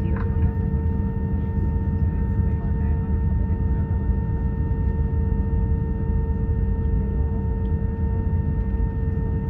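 Airliner cabin noise inside an Airbus A320-214, its CFM56 engines at idle before takeoff: a steady low rumble with a constant mid-pitched hum and fainter higher tones above it.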